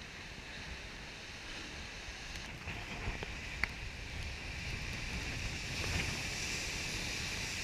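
Storm surf breaking on a rocky shore in strong wind, with wind buffeting the microphone; the steady rushing noise grows gradually louder, with a couple of sharp clicks around the middle.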